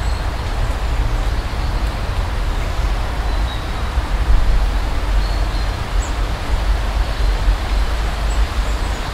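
Steady outdoor background noise: a constant low rumble with an even hiss over it and no distinct events.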